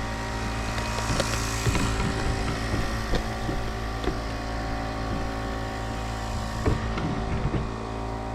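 An engine running steadily at a constant speed, with scattered light knocks and taps over it.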